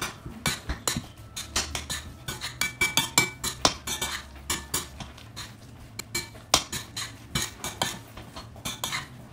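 Irregular light clinks and knocks of kitchen dishes and utensils, many small strikes in quick, uneven succession, over a faint low hum.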